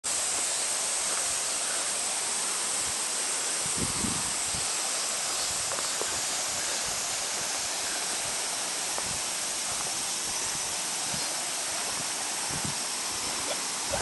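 Mountain stream water running over rocks, a steady rushing hiss. A few soft low thumps sound about four seconds in and again near the end.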